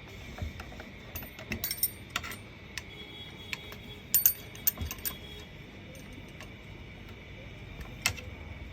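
Small metal parts and tools clicking and clinking while a paper shredder's parts are handled and refitted, in scattered short clusters of taps.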